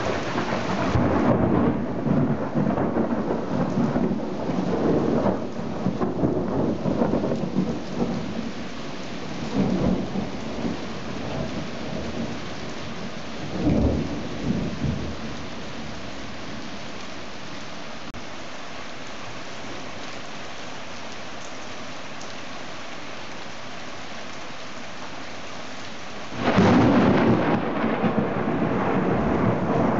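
Heavy rain falling steadily while thunder rolls in repeated swells through the first half, then rain alone for about ten seconds. Near the end a louder crack of thunder breaks in suddenly and rumbles on.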